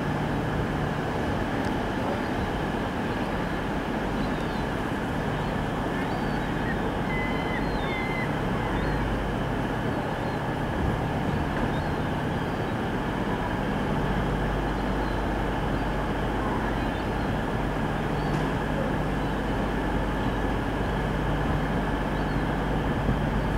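Pacer diesel railbus running steadily as it pulls away over pointwork, its diesel engine making a constant drone.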